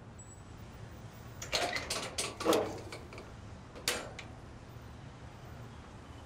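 Low steady street hum, broken by a short clatter of clicks and knocks about a second and a half in and a single sharp click near four seconds.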